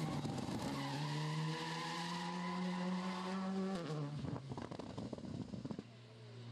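Škoda rally car's engine passing at full throttle, its pitch climbing with a quick gear change or two. After about four seconds the note drops away as it lifts off, followed by a run of sharp crackles.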